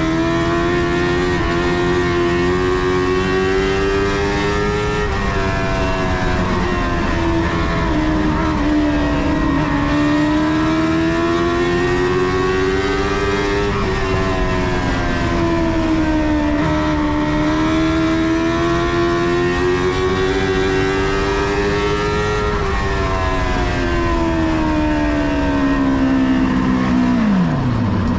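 Dwarf car's motorcycle-based engine racing, heard from inside the cockpit. Its pitch climbs and falls lap after lap as the driver accelerates down the straights and eases into the turns, then drops steeply near the end as the driver lifts off the throttle.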